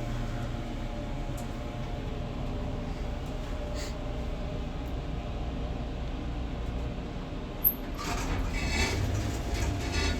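Schindler 330A hydraulic passenger elevator running, heard as a steady low hum inside the cab. A sharp click comes about three-quarters of the way through, followed by a louder rattling stretch near the end.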